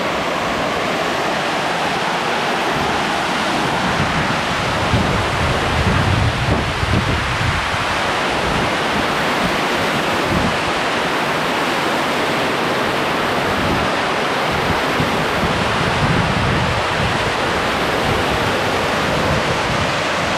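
Crabtree Falls' cascades rushing in a loud, steady roar of falling water, with occasional low rumbles of wind on the microphone.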